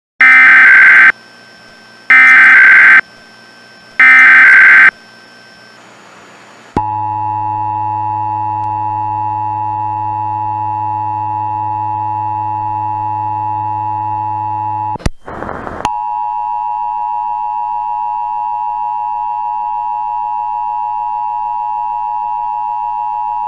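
Emergency Alert System tones: three loud one-second bursts of SAME header data tones, a second apart, then the steady two-tone EAS attention signal (853 and 960 Hz). About fifteen seconds in, a click and a short burst of noise briefly break the attention signal.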